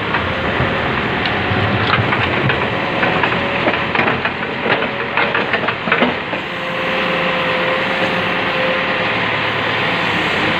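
A heavy digging machine's diesel engine running steadily, with a string of metal knocks and clatter in the middle as its bucket scrapes out a tipper truck's body.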